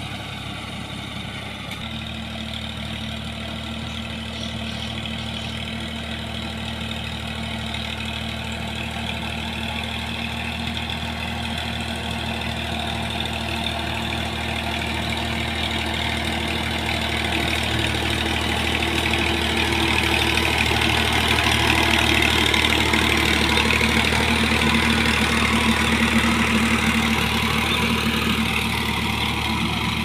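480 tractor's diesel engine running steadily under load as it pulls a rotary tiller through the soil, getting gradually louder as it comes closer and loudest in the last third.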